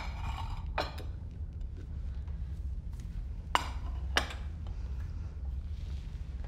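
Light clinks of a plate and cutlery: two close together about a second in and two more a few seconds later, over a low steady room hum.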